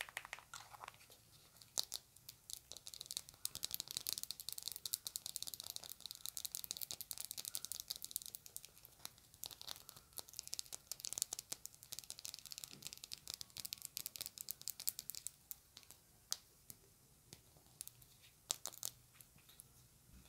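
Long artificial fingernails tapping and scratching quickly on a small hard object, a dense run of crisp, high clicks that thins out near the end.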